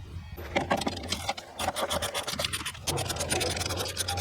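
Ratchet clicking in quick, uneven runs as a 10 mm socket backs out the fan shroud bolts, with some light scraping, over a steady low hum.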